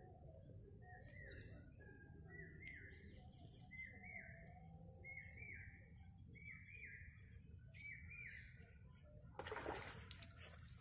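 A bird calling over and over: short paired notes, about one pair a second, with a few higher chirps among them. Near the end a brief, louder burst of noise cuts across them.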